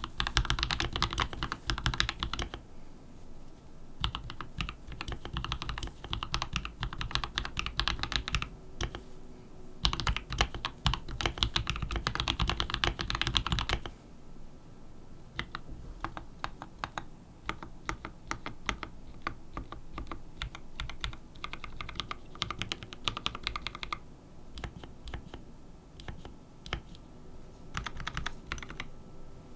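Mechanical keyboard typing on lubed Gateron Cap Yellow linear switches in a plate-mounted, hand-wired, 3D-printed case with no bottom plate and PBT keycaps. Fast runs of keystrokes alternate with short pauses, and the second half has lighter, sparser strokes.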